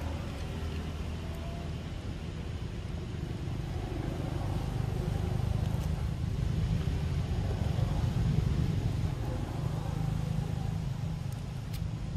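Low rumble of a motor vehicle engine, swelling through the middle and easing off near the end.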